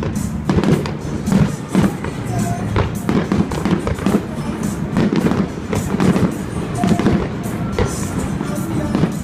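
Fireworks going off, with many bangs in quick, irregular succession, over music playing.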